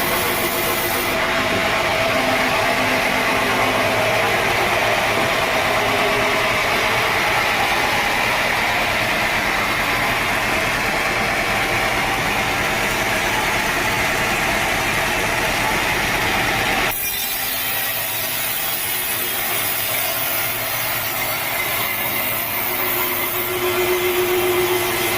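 Sawmill saw running and cutting through a teak log: a loud, steady mechanical drone. Its sound changes abruptly about two-thirds of the way through.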